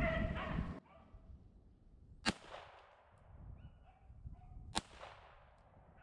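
Beagles baying loudly for the first second, then two sharp handgun shots about two and a half seconds apart, each with a short ringing tail: a revolver being fired at a rabbit.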